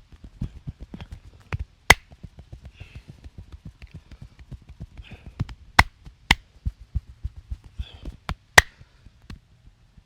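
Massage percussion: hands tapping and chopping in a fast rhythm, several strokes a second, with four sharp louder cracks about two, six, six-and-a-half and eight-and-a-half seconds in.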